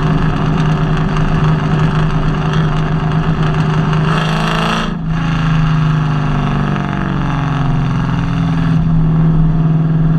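Nissan VH45DE 4.5-litre V8 running with a misfire. It runs steadily, a brief rush of hiss about four seconds in cuts off suddenly, then the engine note shifts for a few seconds and settles back to steady running near the end.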